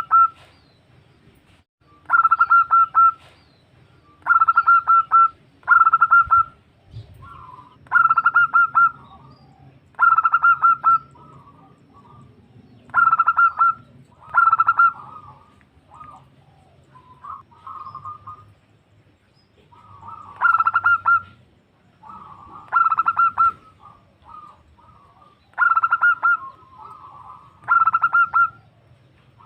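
Female zebra dove (perkutut) calling to males: a rapid, stuttering coo about a second long, repeated roughly every two seconds, with softer, lower notes in between and a short lull about two-thirds of the way through.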